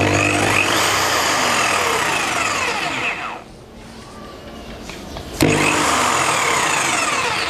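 Bosch GST 8000 jigsaw running free with no load, its blade cutting only air. It runs for about three seconds, drops away, and is switched on again a little after five seconds.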